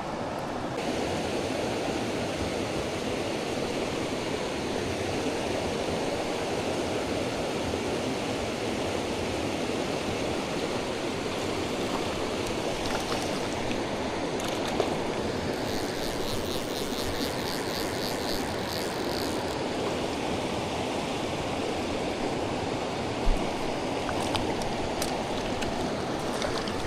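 Tellico River running steadily: an even wash of rushing water. A little past the middle there is a few-second run of rapid ticking, and two small knocks.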